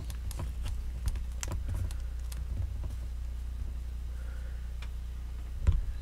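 Faint scattered taps and clicks of hands handling and pressing polymer clay onto a foil-wrapped sculpture armature, over a steady low hum. Near the end comes a single dull thump.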